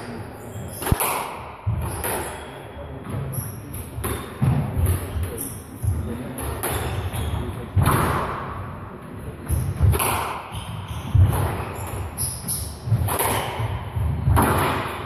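A squash rally: the ball is struck by rackets and smacks off the court walls every second or two, with the players' footsteps thudding and shoes squeaking on the wooden floor.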